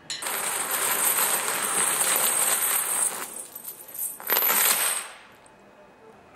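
Metal chains shaken as a stage Foley effect for the Ghost of Marley, a jangling rattle for about three seconds, then one shorter shake about four seconds in.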